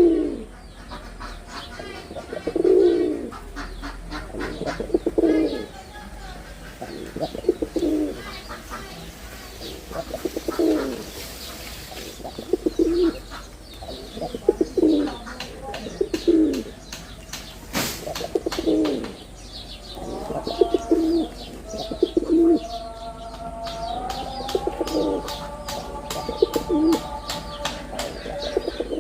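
Male Jalali pigeon (domestic rock pigeon) cooing over and over, one low coo every couple of seconds, with high chirping calls mixed in.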